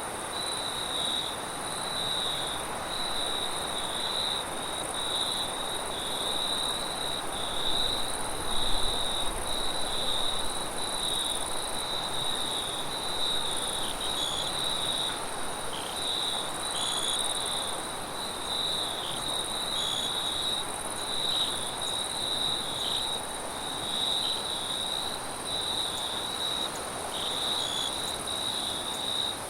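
Insects chirping steadily in a continuous chorus, with a pulsing trill and a thinner, higher hiss above it.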